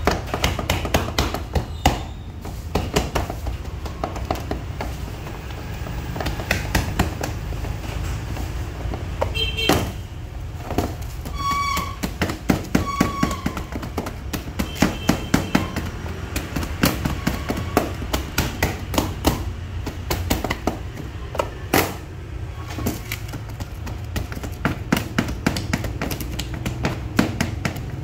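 Irregular light knocks and taps of hands pressing bread dough down into a metal Pullman loaf tin, the tin knocking on a steel counter, over a steady low hum.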